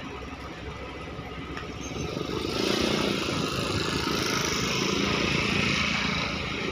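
An engine running. It grows louder about two seconds in and stays loud with a hiss over it, easing slightly near the end.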